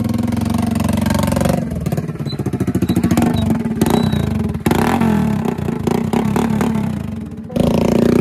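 Hero HF Deluxe single-cylinder motorcycle engine running and revving under way, breathing through a homemade upright tractor-style silencer pipe, its exhaust pulses plainly heard. The sound changes abruptly three times as different passes are cut together.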